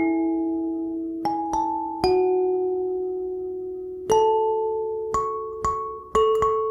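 Kalimba music: metal tines plucked one or two at a time in a slow, gentle melody, each note ringing on for a second or more.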